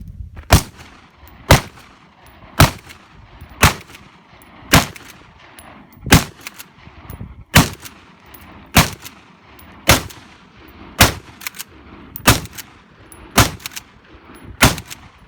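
Rifle fired in a steady string: thirteen loud shots, about one a second, each crack trailing off in a short echo.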